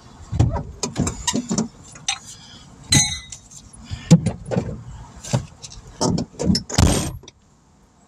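Close-up handling noise: irregular knocking, rattling and rustling near the microphone, with a brief metallic jingle about three seconds in. It cuts off abruptly a little after seven seconds.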